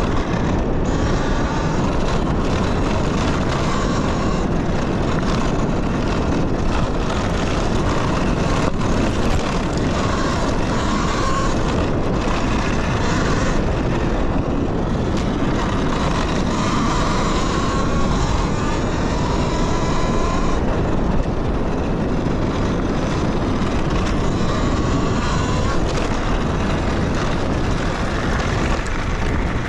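Talaria Sting electric dirt bike being ridden, with heavy wind noise on the microphone and the motor's thin whine rising and falling as the throttle changes. Now and then a sharp knock from the bike over the rough trail.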